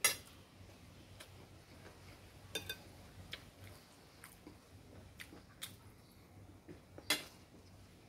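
Metal spoon and fork clinking and scraping against a plate while eating, about a dozen sharp clicks, the loudest at the very start and about seven seconds in.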